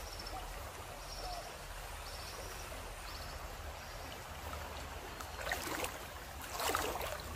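Shallow river flowing, a steady gentle rush of water, with faint high chirps about once a second and a couple of louder swells of splashing noise near the end.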